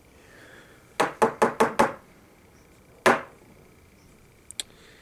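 Pump-action airsoft shotgun being worked: five quick sharp clacks about a second in as the stiff pump is cycled, then a single louder snap with a short ring about two seconds later, and two faint clicks near the end.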